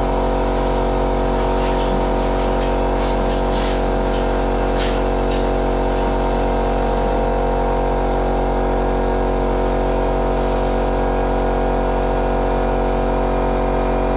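Loud steady mechanical hum of several constant tones that does not change. Faint scratchy brushing sounds come through it over the first few seconds.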